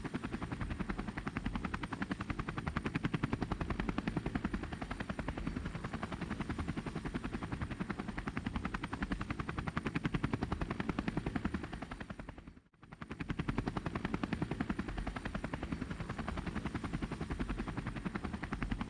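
Rotor blades chopping rapidly and steadily, with a brief break about two-thirds of the way through.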